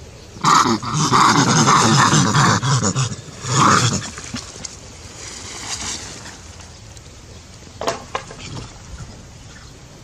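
A macaque giving a loud, harsh call lasting about two and a half seconds, then a second, shorter call a second later.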